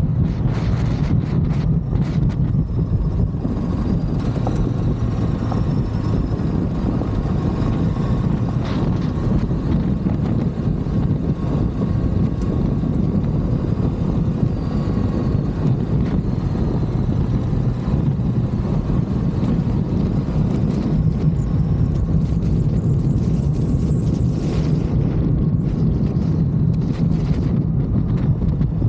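Ducati DesertX's 937 cc L-twin engine running steadily under way, with wind noise on the microphone.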